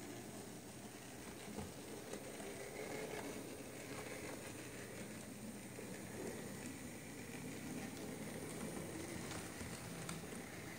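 H0e-scale model of the HF-110 narrow-gauge steam locomotive running along the track: a faint, steady whir and rattle from its small electric motor and wheels, with a few light clicks.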